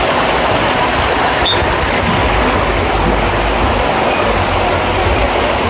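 Steady rushing noise at the top of a water slide tower: wind buffeting the phone's microphone with an uneven low rumble, over the hiss of water running down the slides.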